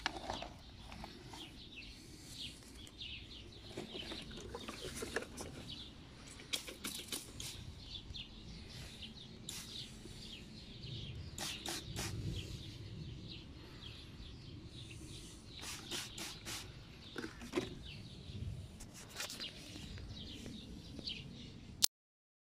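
Hand trigger spray bottle squirting lemon juice onto slugs in repeated quick bursts, several squirts at a time, amid the rattle of plastic seedling trays. Birds chirp in the background.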